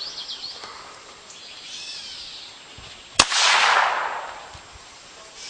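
A single shot from a .22 pistol about three seconds in, a sharp crack followed by about a second of rushing noise that fades away.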